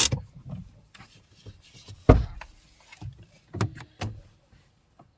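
Car door being opened and shut as people get out: a sharp click at the start, a heavy thump about two seconds in, then a few lighter knocks.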